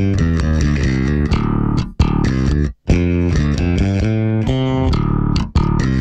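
Six-string Warwick Thumb NT 6 bass played through a Two Notes ReVolt Bass preamp pedal on its Classic Clean channel, cab sim off: a quick line of plucked notes that stops briefly about three seconds in.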